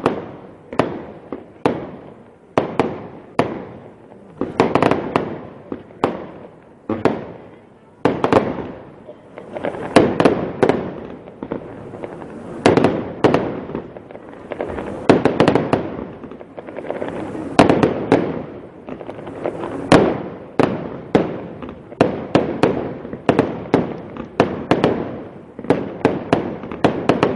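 Fireworks display: aerial firework shells bursting in a rapid string of sharp bangs, about one to two a second, with stretches of dense crackle between the reports.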